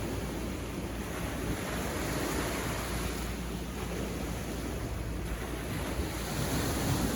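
Sea waves washing onto a beach: a continuous surf wash that swells slightly around the middle and again near the end.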